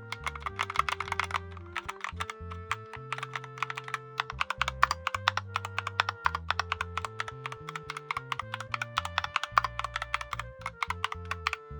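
Fast typing on a computer keyboard: a dense run of key clicks with a couple of short pauses. Background music plays underneath.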